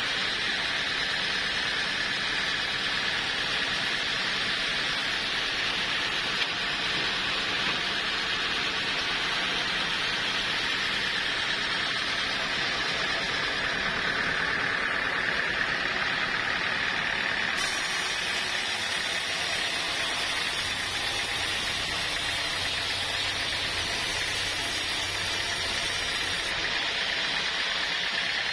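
Sawmill saw running steadily with a continuous high whine.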